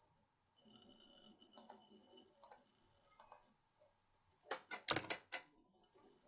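Faint clicking of computer keys or mouse buttons. A few scattered clicks are followed by a quick run of about six louder clicks near the end.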